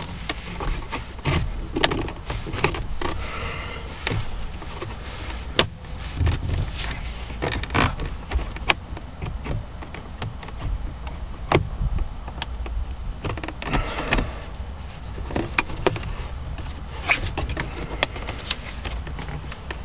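Hard plastic shifter-surround trim of a 2004 Honda Civic creaking and clicking irregularly as it is pried up and flexed by hand against its retaining clips, over a low rumble of handling noise.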